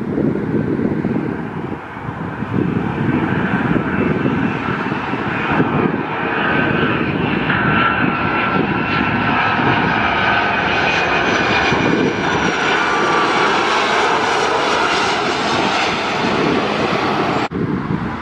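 FedEx Express Boeing 757 freighter's twin jet engines on landing approach: a low rumble, joined after a few seconds by a whine of several tones that grows louder as the jet comes close overhead. The sound cuts off suddenly near the end.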